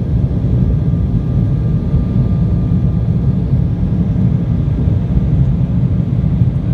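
Jet airliner cabin noise heard from a window seat over the wing in flight: a loud, steady low rumble of engines and rushing air, with a faint steady whine above it.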